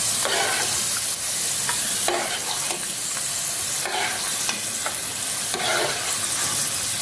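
Cashews and raisins sizzling in hot sunflower oil in a pan, with a spoon scraping the pan a few times as they are scooped out.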